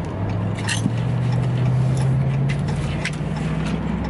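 Chrysler 300 engine heard from inside the cabin while driving, its hum climbing slowly in pitch as the car gathers speed. A few light clicks sound over it.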